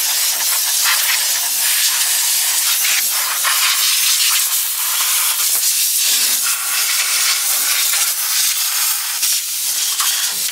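Compressed air jetting from a handheld air blow gun: a loud, continuous hiss that wavers slightly as the nozzle is moved.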